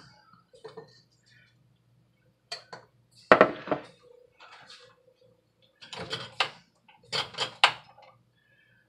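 A ladle clanking against an enamel pot and bowl as food is dished up. There is a loud clatter a little over three seconds in, then two more bursts of clanking near the end.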